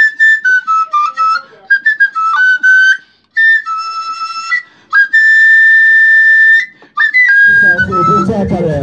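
A flute plays a tune of short notes at a few pitches, then two long held notes. Music with a beat comes in near the end.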